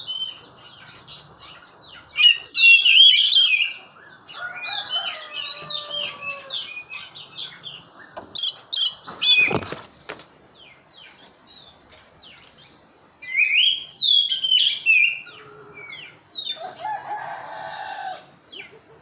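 Oriental magpie-robin singing in bursts of varied, quick whistled and chattering phrases with short pauses between them. A sharp click comes about nine and a half seconds in, and a thin steady high-pitched tone runs underneath.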